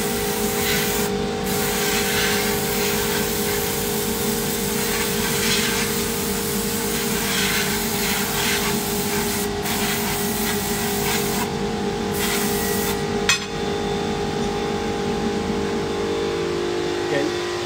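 Airbrush spraying coloured cocoa butter onto a chocolate mold: a steady hiss with a few brief pauses, stopping about 13 seconds in. A steady machine hum runs underneath.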